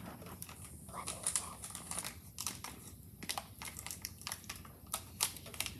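Scattered light clicks and crinkling rustle, irregular and close, over a faint steady low hum.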